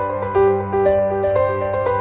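Background music: a repeating keyboard melody over a held low note, with a light tick about twice a second.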